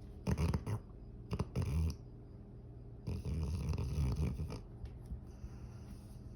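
A sleeping pet snoring: two short, rough snores in the first two seconds, then a longer snore about three seconds in, with quieter breathing between them.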